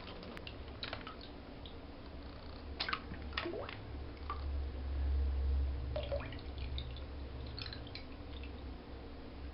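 Slime Baff bath gel dripping and squelching as hands scoop it into a plastic bag and pour it from a cup, with scattered drips and small splats. A low rumble swells in the middle.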